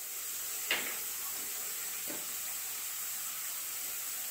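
Vegetables and ground spices sizzling in oil in a kadhai, a steady hiss, with a light tap just under a second in.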